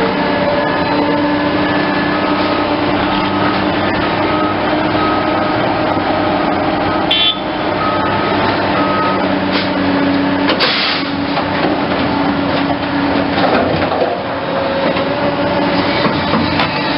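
Large excavator's diesel engine running steadily under work, with a high beep repeating about every 0.7 s for several seconds and a couple of sharp metallic knocks partway through.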